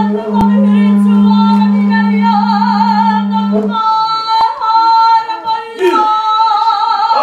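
A group of Māori performers singing together, women's voices leading, with a steady low held drone underneath that stops about halfway through.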